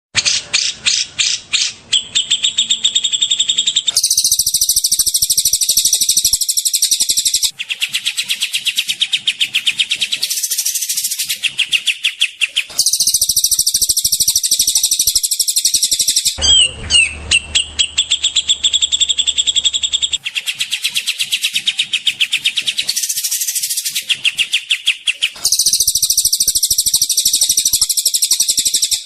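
Recorded songbird calls, spliced and looped as bird-tutoring audio: fast, high-pitched trills and rapid-fire chattering 'tembakan' phrases in blocks of a few seconds that switch abruptly, some blocks repeating. Around the middle one block carries a low hum under the calls.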